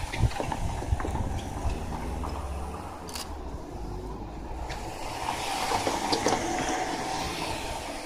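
A car drives across the level crossing close by, its low rumble and tyre noise fading within the first second or so. Steady road noise follows, swelling again from about five seconds in as another vehicle nears.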